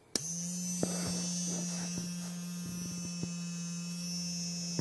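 Character Options electronic moving Dalek toy switched on just after the start, its vibration motor shaking the bristle clusters underneath with a steady buzzing hum like an electric toothbrush, held in the hand with a few light ticks of handling.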